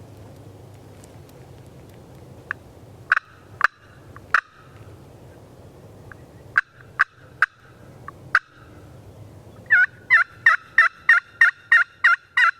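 Wild turkey yelps and clucks: single short, sharp notes spaced a second or so apart, then about ten quick yelps in an even run near the end.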